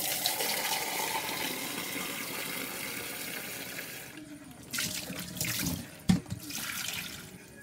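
Water from a kitchen tap running hard and splashing into a plastic container being rinsed at a sink, steady for about four seconds, then in two shorter gushes with a single knock between them.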